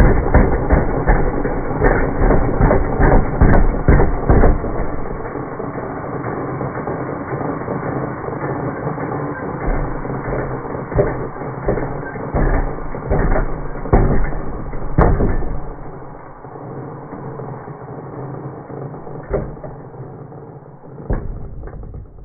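A jigsaw blade cutting through a thin wooden board. The audio is slowed down with the slow-motion footage, so the saw's running becomes a low, drawn-out grind broken by irregular knocks. The grind is loudest in the first few seconds and fades gradually over the last several seconds.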